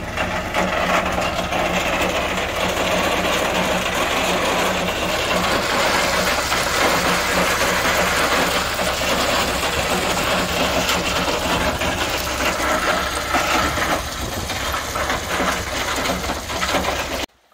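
Dump truck's diesel engine running steadily while the raised bed tips a load of crushed stone, which pours out the tailgate with a continuous rushing, rattling noise. It cuts off suddenly near the end.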